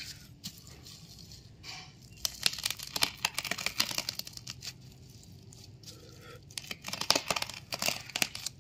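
Plastic stretch film and bubble wrap crinkling and tearing as a parcel is cut open by hand. It comes in two spells of crackling, one about two seconds in and one about seven seconds in, with quieter rustling between.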